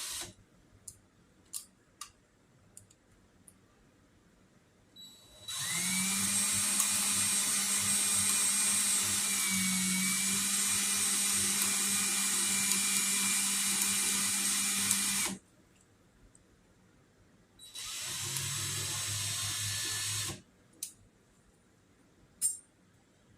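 Electric drill spinning a bolt-mounted string-trimmer spool slowly to wind new trimmer line onto it: one steady run of about ten seconds, then a shorter run of about two and a half seconds. Between and around the runs there are a few light clicks and knocks.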